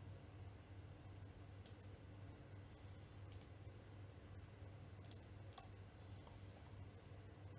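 Computer mouse buttons clicking faintly about five times, two in quick succession near the middle, over a low steady hum.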